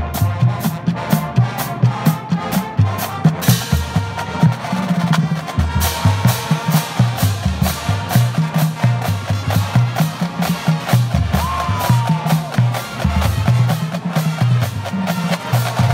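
Marching band drumline playing a drum feature: snare drums rattling off rapid strokes and rolls over low bass-drum notes that move between different pitches.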